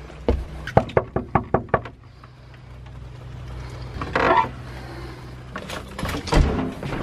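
A quick run of knocks and footfalls on wooden boards, then a cabin door scraping open about four seconds in. Two or three heavier thuds of the door and steps come near the end.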